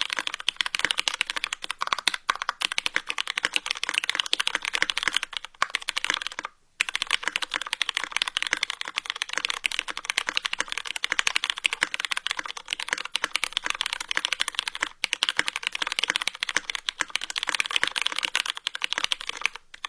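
Fast, aggressive keyboard typing: a dense, unbroken stream of rapid key clicks, with a short pause about six and a half seconds in.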